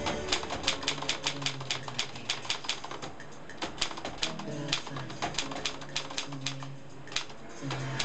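Typing on a 1960s Keller & Knappich Princess 300 portable manual typewriter: quick, uneven runs of sharp clacks as the typebars strike the platen, several a second, with short pauses between runs.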